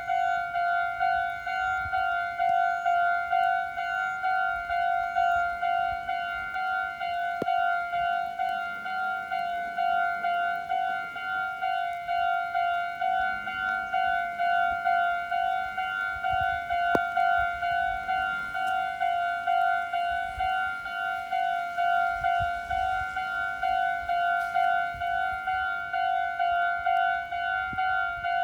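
Japanese railroad crossing warning bell ringing its repeating 'kan-kan' alarm, an even, fast pulse of the same ringing tone throughout.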